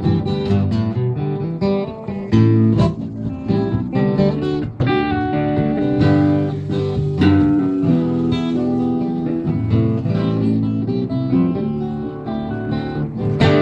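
Band music with no singing: a guitar plays an instrumental passage of plucked notes and strummed chords.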